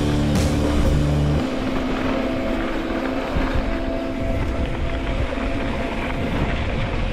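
Background music with a steady, stepped bass line that drops out about a second and a half in, leaving higher sustained notes over a noisy wash.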